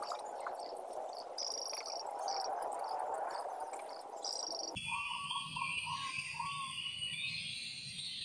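Crickets and other insects chirping: repeated short high chirps over a steady hiss. About five seconds in, the background changes abruptly to a different insect chorus with a run of short mid-pitched chirping notes.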